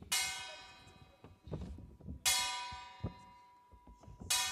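Hand-held lion-dance gong struck three times, about two seconds apart, each stroke ringing and slowly fading. Faint low knocks fall between the strokes.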